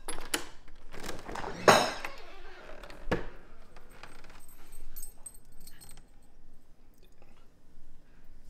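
Light metallic jingling and several sharp knocks and clatters, the loudest about a second and a half in.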